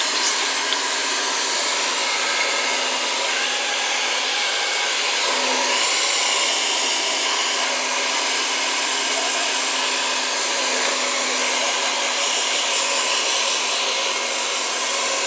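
Handheld hair dryer running steadily while blow-drying hair: a rush of air with a steady low hum.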